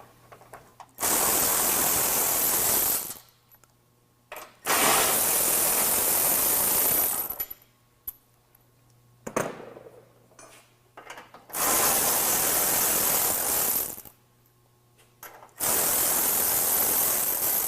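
A power wrench running bumper mounting bolts out of the truck's frame ends in four bursts of about two to three seconds each, with small metal clicks of the socket and bolts in between.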